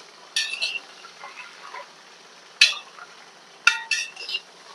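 Carrots frying in hot fat in a kazan with a faint sizzle while they are stirred, the utensil clinking sharply against the pot a few times.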